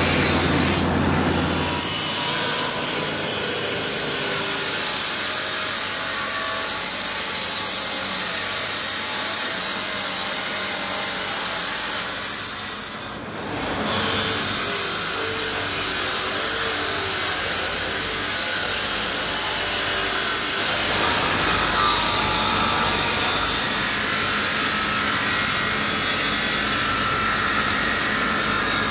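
Steady, rough rasping noise of workshop tools working on metal, dipping briefly about halfway through.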